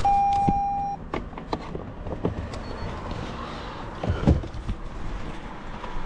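A single electronic beep of about a second as the Topdon scan tool's cable is plugged into the car's OBD-II diagnostic port, followed by scattered clicks and knocks of the connector and cable being handled under the dashboard. A fainter beep of the same pitch comes at the very end.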